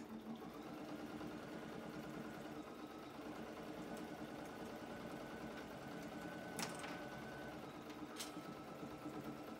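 Bernina computerised sewing machine with an even feed foot running steadily, stitching a long seam through layers of denim and flannel. Two sharp clicks come in the second half, about a second and a half apart.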